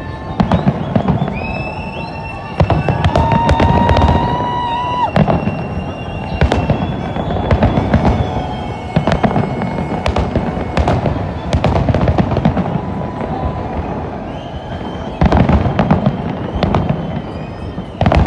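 Aerial fireworks display: a steady run of booms and crackling bursts, with heavier flurries of bangs about two and a half seconds in and again near the end.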